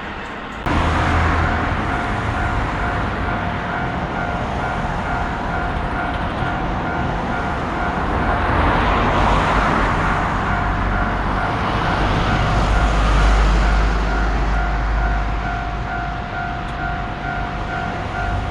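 Japanese level-crossing warning bell ringing with a steady, repeating two-tone ding while a train rumbles past. The rumble swells twice, around the middle and again near the end.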